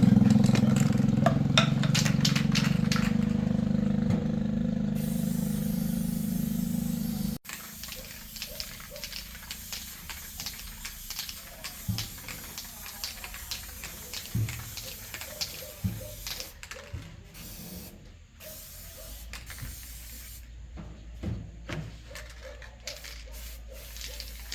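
A machine running steadily with a low hum that slowly fades, cut off abruptly about seven seconds in. After that come scattered small clicks and knocks of tool work.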